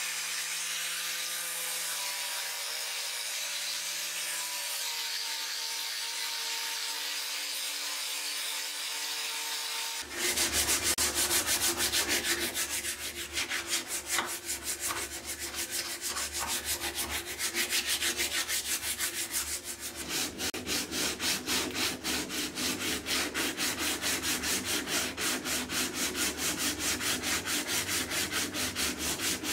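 Angle grinder with a sanding disc working a wooden axe handle: a steady motor whine over a grinding hiss. About ten seconds in it gives way abruptly to sandpaper rubbed by hand up and down the wooden handle in quick, even strokes, about three a second.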